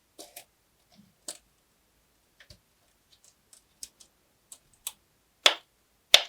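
A string of short, irregular clicks and taps, about a dozen, as small toys are handled. The strongest two come near the end.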